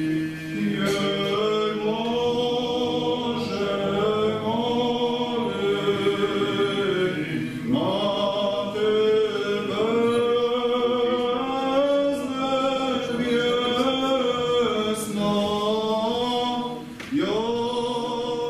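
Church choir singing an Orthodox liturgical chant a cappella, in long sustained phrases. New phrases begin about eight seconds in and again near the end.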